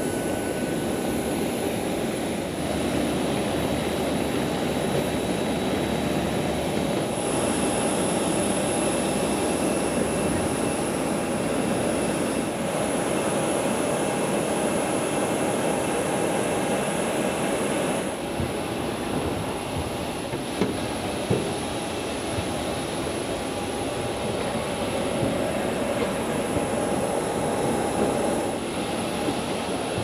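Steady jet-turbine whine over a loud rushing roar of aircraft on an airport apron, with several high steady tones held throughout.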